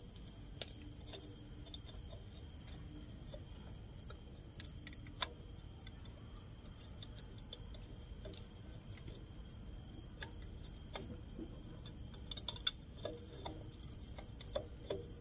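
Faint, scattered clicks and light taps as the oil cup at the bottom of a transformer silica gel breather is handled and turned by hand, over a steady high-pitched hum.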